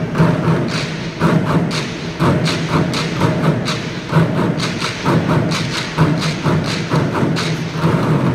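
Rhythmic percussion: thumping drumbeats about three a second, over a steady low musical hum.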